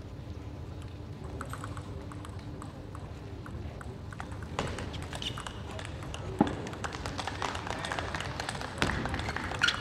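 Table tennis ball clicking off the bats and table in a quick run of light taps. About halfway through, the hall noise rises as the crowd reacts, with clapping.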